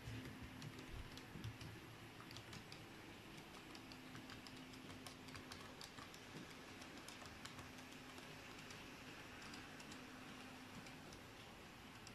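Faint, irregular clicking and ticking as an H0-scale model electric train runs along the track, over a faint low hum that comes and goes.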